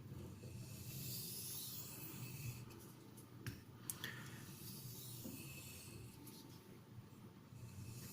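Knife blade in CTS XHP steel stroked lightly along a sharpening stone, a faint scraping hiss in several slow strokes, as a micro bevel is put on the edge to remove the last of the burr. A few small clicks fall near the middle.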